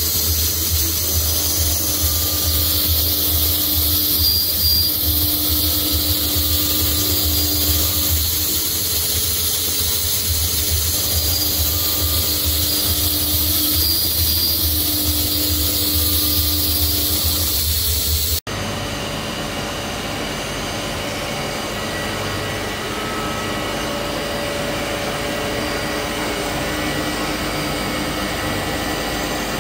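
SANCO SM-FB100NC horizontal boring and milling machine milling a steel mold core: steady spindle and cutting noise with a low hum, a few steady tones and a high hiss. About eighteen seconds in, the sound cuts abruptly to a slightly quieter, different stretch of the same machining.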